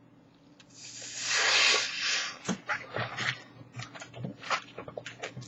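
Air hissing into a 260 twisting balloon for a second and a half as a fresh one is inflated, followed by a string of short squeaks and crackles of the latex as it is handled and twisted.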